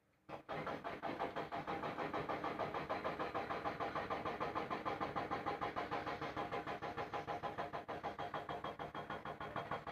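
A small engine starts up abruptly just after the start, then runs with an even, rapid throb of several pulses a second.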